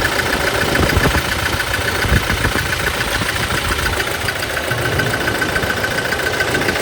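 Toyota Hilux four-cylinder diesel engine idling with an uneven, shaky beat. It is misfiring on cylinder 1 (P0301) because the cylinder's injector nozzle is clogged.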